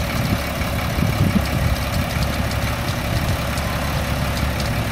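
Caterpillar C7 7.2 L inline-six turbo diesel idling steadily.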